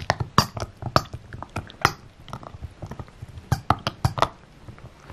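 Small dog chewing a green rubber toy ball: irregular crunching and clicking of teeth on rubber, several times a second.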